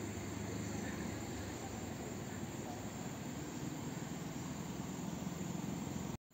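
Steady outdoor ambience of insects chirring, with a faint low hum underneath; the sound cuts out completely for a moment near the end.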